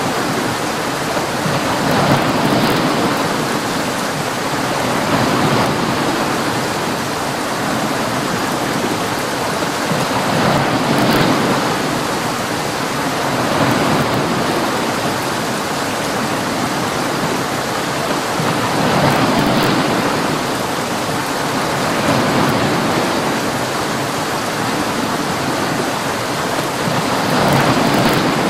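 Heavy storm rain with waves: a steady rush of noise that swells and eases every few seconds.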